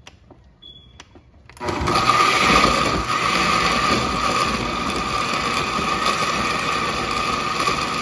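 Oster countertop blender switched on about one and a half seconds in, after a few faint clicks, then running steadily with a steady high hum as it grinds dried ancho chiles, onion and garlic in water into a purée.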